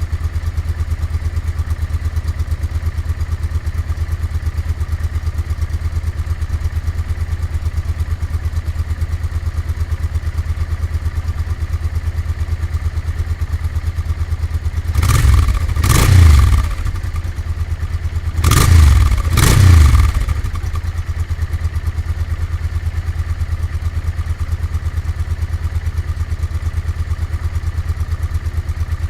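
Honda NTV 650's V-twin engine with an aftermarket Motad exhaust idling with a steady low pulse. Midway it is blipped four times in two quick pairs, then drops back to idle.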